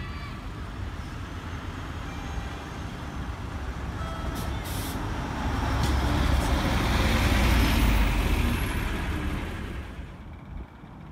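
Single-decker city bus driving past close by, its engine rumble building to a peak about two thirds of the way through and then fading away.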